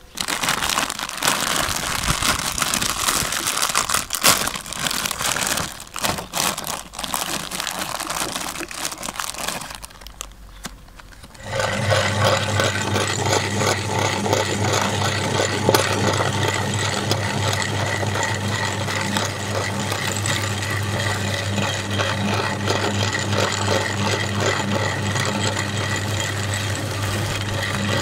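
A plastic bag of coloured Oreo cookies crinkling as it is handled. About eleven seconds in, a motor-driven meat grinder starts and runs steadily with a low hum, crunching and crackling as the cookies are fed in and ground into crumbs.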